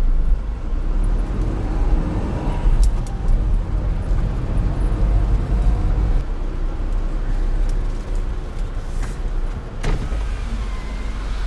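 Honda car's engine and road noise heard from inside the cabin while driving slowly, a steady low rumble. A single sharp knock about ten seconds in.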